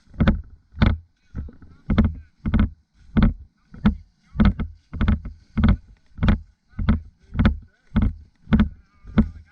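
Footsteps of a person walking at a steady pace, a little under two steps a second.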